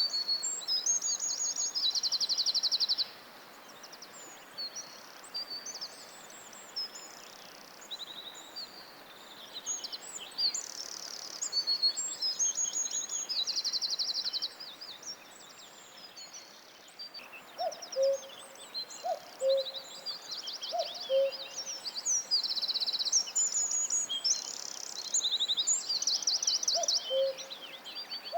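Several songbirds singing together, with fast high trills repeating every few seconds over a faint steady hiss. From a little past halfway, a dove joins in, cooing low and repeatedly.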